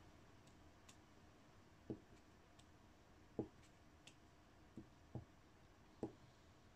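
Faint scattered taps and clicks of a diamond-painting drill pen picking up resin drills from a plastic tray and pressing them onto the canvas, about five soft knocks spread over several seconds with a few lighter ticks between.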